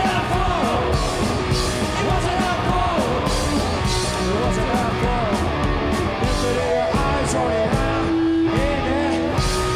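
Live punk rock from a guitar-and-drums duo: electric guitar and a drum kit with regular cymbal crashes, and the drummer singing lead vocals.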